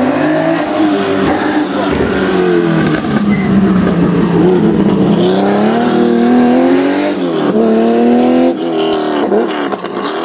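Historic rally car's engine under hard load: the pitch sags as it slows, then climbs steeply as it accelerates away, with quick upshifts breaking the rising note near the end.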